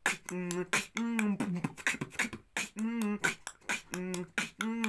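Vocal beatboxing: short hummed notes alternating with sharp mouth clicks and hissy snare sounds in a steady rhythm.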